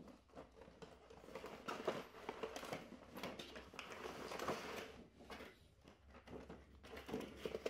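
Cardboard box and clear plastic packaging insert being handled and slid apart, faint rustling and scraping on and off as the box is opened.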